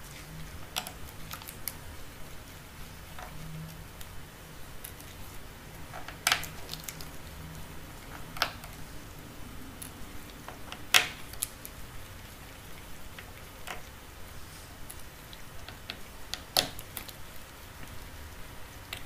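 Scattered small clicks and taps of a precision screwdriver working the Torx screws on a Huawei Ascend G510's plastic back frame, with four sharper clicks spread through.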